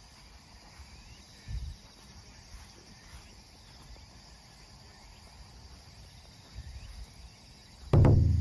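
Crickets and other insects chirring steadily in an open grass field, with a couple of soft low thumps. Near the end comes a sudden loud, low boom that rings on and fades.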